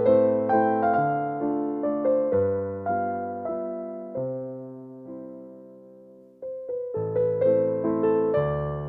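Background piano music: gentle struck chords that die away over a few seconds, then a new phrase begins about two-thirds of the way in.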